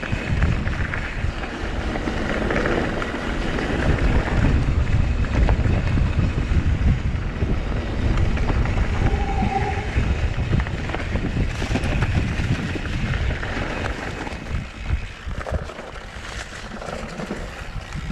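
Mountain bike riding down a rough enduro trail: wind buffeting the camera microphone over the rumble and rattle of tyres and bike on rough ground. A short squeal comes about halfway through.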